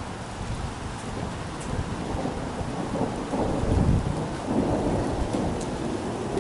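Thunder rumbling over steady light rain, swelling about two seconds in and loudest near the middle, with a few drops ticking.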